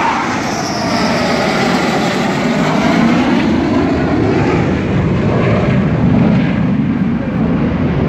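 Dassault Rafale fighter jet passing low overhead on its landing approach, its twin turbofan engines giving a loud, steady jet roar. A swirling, sweeping hiss shifts in pitch as it goes over.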